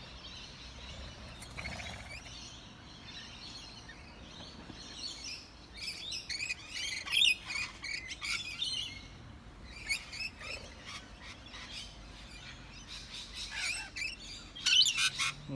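Birds chirping and calling in short bursts, busiest in the middle and again near the end, over a faint steady outdoor background.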